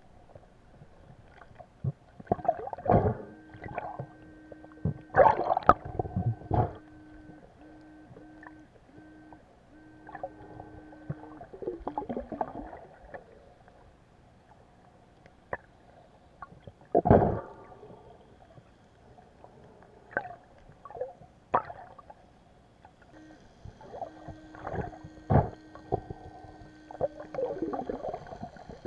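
Underwater sound of hands digging in a sandy seabed: loud, sudden muffled thuds and gurgling water. Under them, twice, a steady buzzing tone with short breaks: the Pirat Vibro metal detector signalling a target.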